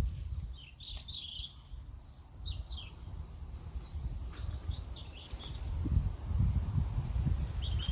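Small birds chirping and singing in quick, high-pitched calls, over a low, gusting rumble that swells in the second half.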